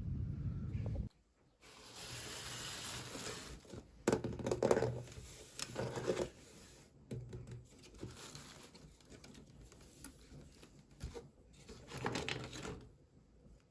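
Plastic and cardboard toy packaging rustling, crinkling and tearing as it is handled and opened, in irregular bursts with sharp clicks. A low rumble cuts off about a second in, just before the handling starts.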